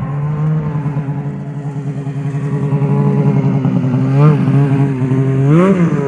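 Snowmobile engine idling steadily, blipped twice with short rises in pitch about four seconds in and near the end.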